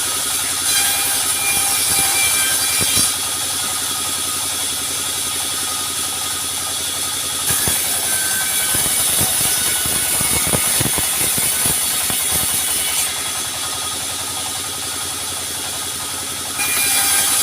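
Sawmill running: a steady mechanical rattle of the engine-driven machinery, with a louder hissing saw sound that comes and goes as the blade cuts wood, strongest from about seven to thirteen seconds in and again near the end.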